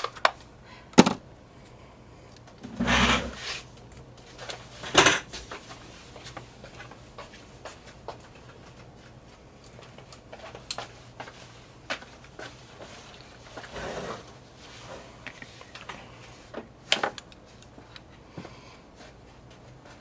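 Scattered clicks, knocks and rubbing of paper-crafting supplies being handled on a work table. A few louder knocks come about one, three and five seconds in, the one at three seconds longer and deeper.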